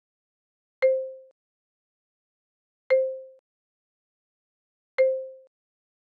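A short, soft electronic tone sound effect marking each flashcard change, played three times about two seconds apart. Each tone starts sharply on a single clear note and fades out within half a second.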